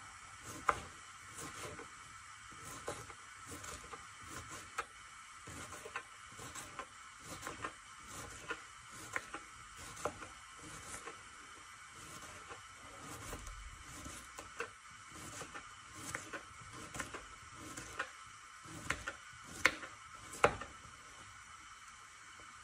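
Kitchen knife chopping cucumber on a wooden cutting board: irregular taps of the blade against the board, with a few sharper knocks near the end, over a faint steady hiss.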